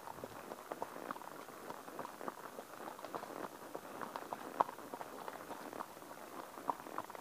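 A ridden horse's hooves striking a leaf-covered forest path: a quick, uneven run of short clacks with a rustle of leaves underneath.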